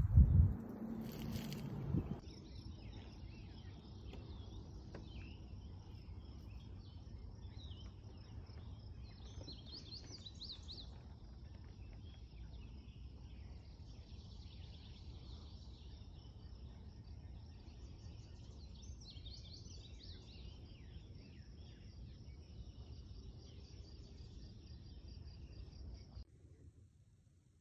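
A loud knock and rustling in the first two seconds. Then a steady high insect trill over a meadow, with birds chirping now and then, which cuts off abruptly near the end.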